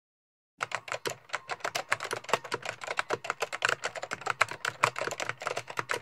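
Rapid typing on a keyboard, a quick irregular run of key clicks that starts about half a second in, used as a sound effect for text being typed out.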